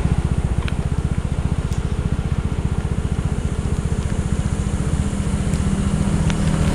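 Small scooter engine running with a rapid, even firing pulse, getting a little louder near the end.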